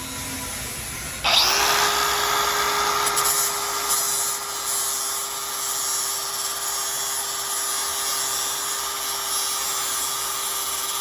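Angle grinder switched on about a second in, winding up quickly to speed and then running with a steady whine while grinding down a weld bead on steel.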